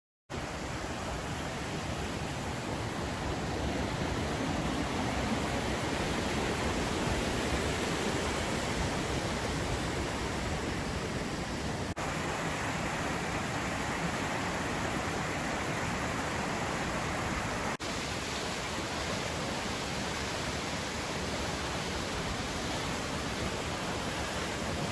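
Waterfall rushing: a steady, even hiss of falling water that starts abruptly, with two very short breaks about twelve and eighteen seconds in.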